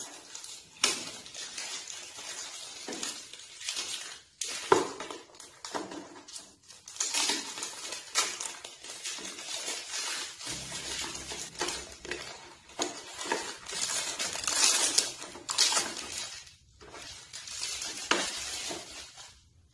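Crinkling and rustling of a perfume gift box being unwrapped and opened by hand: irregular crackles of wrapping and cardboard, with scattered sharp clicks and taps as the box is handled.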